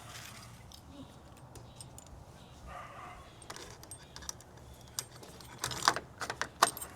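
Small metal lock parts and screws clicking and clinking as they are handled and fitted, with a cluster of sharper clicks near the end.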